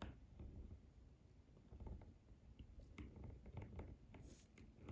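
Near silence, with a few faint small ticks as a ball-tipped dotting tool rubs a star sticker down on a press-on nail.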